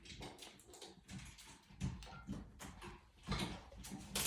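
Green-winged macaw making small quiet clicks and rustling sounds, with two louder short noisy bursts near the end.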